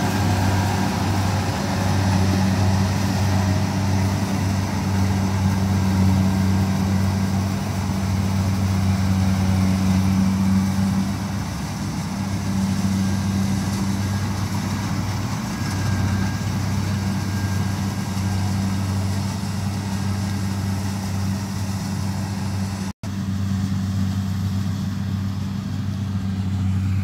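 Kubota DC-70 rice combine harvester running steadily while cutting rice, a constant engine hum, with one momentary dropout near the end.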